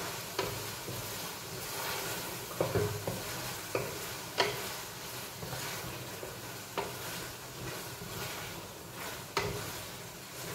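Chicken afritada cooking in a pan on a gas stove, sizzling as it is stirred, with sharp knocks of the stirring utensil against the pan now and then.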